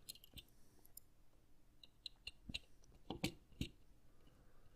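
Faint clicks and small plastic taps as a game controller's analog thumbstick module, which has a push button built in, is worked and pressed by hand. The clicks come a few at a time, with a quick run of sharper ones in the second half.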